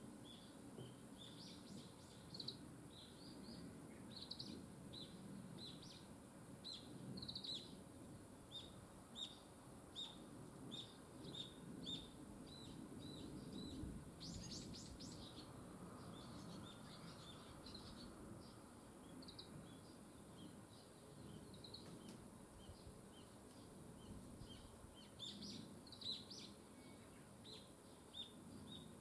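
Small birds chirping: many short, high chirps repeated throughout, with a quick flurry about halfway through, over a faint low background of outdoor ambience.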